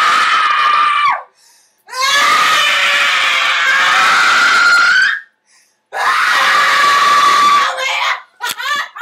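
A woman screaming in long held yells, one after another with short breaks between, as mock labour cries. Near the end they give way to a few short, broken cries.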